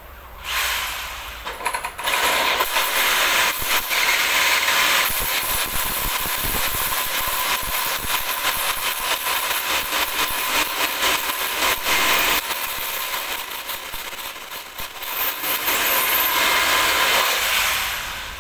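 Electric drill drilling overhead into the top of a sliding-door frame opening, running under load with a brief ease-off about two-thirds of the way through and stopping near the end.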